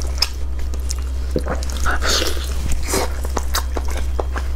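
Close-up chewing and biting of spicy braised beef honeycomb tripe: scattered wet, smacking clicks, with a brief noisier squelch about two seconds in, over a steady low hum.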